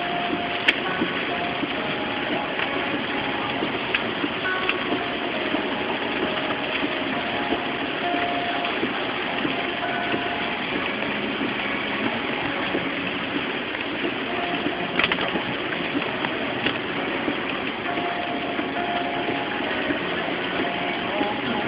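Heavy rain and wet-road tyre noise heard from inside a moving car's cabin as a steady hiss. Two sharp clicks stand out, one about a second in and one about fifteen seconds in.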